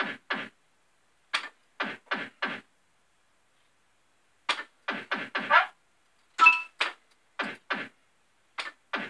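Family Guy fruit machine's reels stopping one after another, each stop a short clunk with a tone, in quick groups of three or four every couple of seconds as successive games are played.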